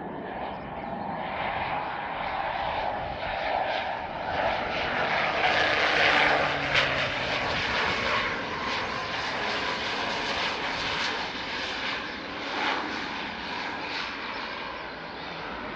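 Pilatus PC-12 NGX single-engine turboprop touching down and rolling out along the runway. The engine and propeller noise swells to its loudest about six seconds in as the plane passes, then slowly fades.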